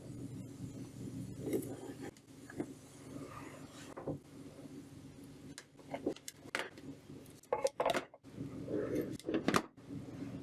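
Scattered knocks and clinks of tools and metal being handled on a workbench, the sharpest ones in the second half, over a steady low hum.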